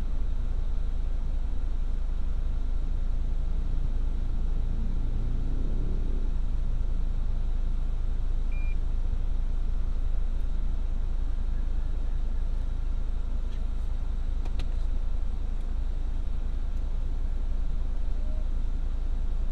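Steady low rumble of a car's engine and road noise heard from inside the cabin while creeping in slow traffic, with a couple of faint ticks about two-thirds of the way through.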